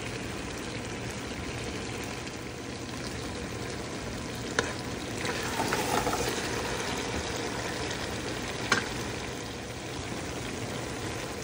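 Chicken and okra frying in oil in a pan, a steady sizzle, with a spatula stirring through it and two sharp knocks against the pan about four seconds apart midway.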